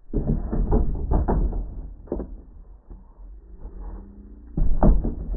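Muffled knocks and a low rumble from framed wooden test-wall panels toppling over and hitting the ground after being shot through, with no high end to the sound. There is a loud stretch at the start and another near the end.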